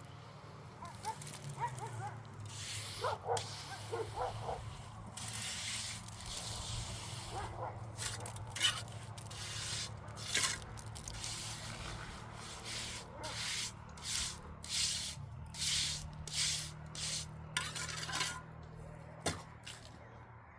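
Repeated scraping strokes, irregular at first and about one a second in the second half, over a steady low hum.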